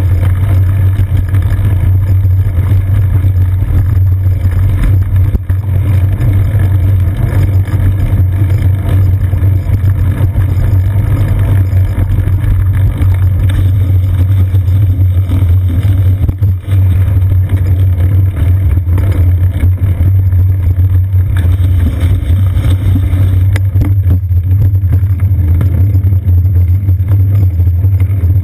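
Steady, loud low rumble of a moving bicycle picked up by a seat-post-mounted GoPro Hero 2 in its housing: wind and road vibration while riding.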